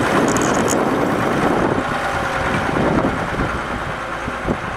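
Deutz-Allis 7120 tractor's diesel engine running as the tractor drives off, its sound easing slightly as it moves away.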